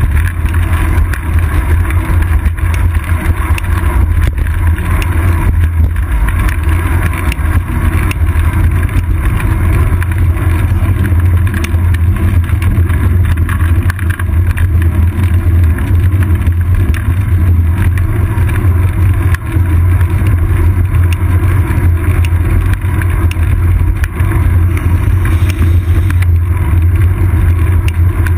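Steady low rumble of road vibration and wind on a seat-post-mounted GoPro Hero 2 in its housing, on a bicycle rolling along a paved road.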